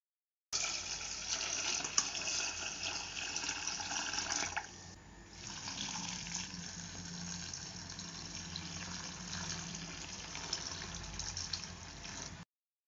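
Tap water pouring into a steel bowl of tender tamarind leaves, rinsing them. The stream starts abruptly, dips briefly about halfway, then runs on until it cuts off near the end.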